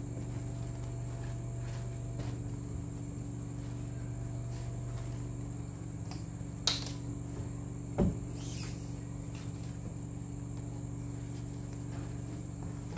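Steady low hum with a thin high whine behind it, and brief rustles from the stiff crinoline-and-fabric bow being handled, loudest twice, about 7 and 8 seconds in.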